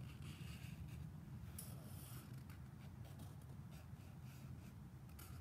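Felt-tip marker drawing on paper: faint, irregular strokes of the tip across the sheet, over a low steady background hum.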